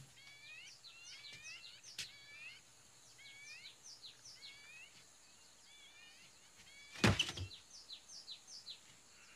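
Small birds chirping over and over in short, downward-sweeping notes. There is a faint click about two seconds in and a loud thump about seven seconds in.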